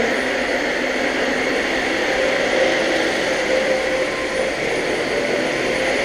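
Vacuum cleaner running steadily, its motor whining over a constant rush of air.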